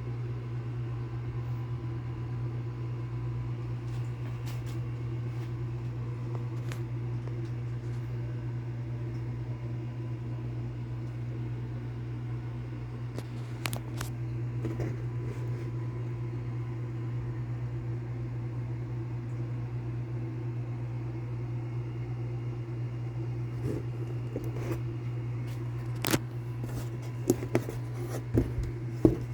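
Steady low mechanical hum, with a few sharp clicks and knocks near the end.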